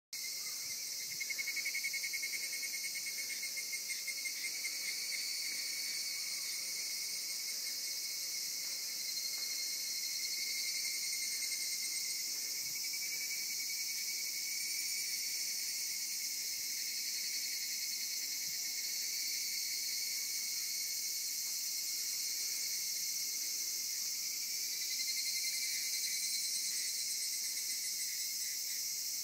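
Chorus of summer insects singing: a steady, high-pitched, shrill trilling with several singers layered at different pitches. A pulsing lower trill swells near the start and again near the end.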